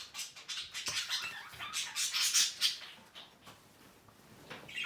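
Pet budgerigars chattering, a quick run of short, high-pitched chirps and scratchy warbles that is busiest about two seconds in and thins out near the end.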